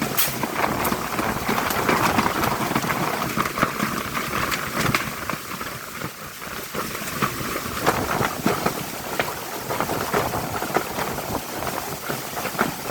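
Heavy rain of a summer storm pouring down, a steady rush thick with sharp patters of drops striking surfaces.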